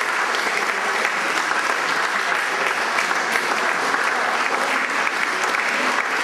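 Audience applauding, a steady, dense clapping that keeps up without a break.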